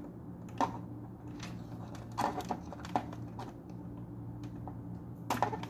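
Scattered light clicks and taps of a soldering iron and a small circuit board being handled while a transistor is desoldered, the sharpest cluster near the end, over a steady low electrical hum.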